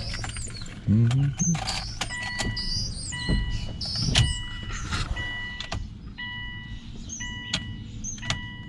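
A car's warning chime beeping steadily about twice a second, starting about two seconds in, as the key goes into the ignition of a 2003 Subaru Outback with the door open. Clicks and key handling sound around it.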